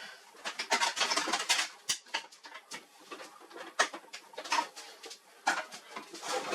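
Handling noise: irregular clicks, light knocks and scraping in short clustered runs.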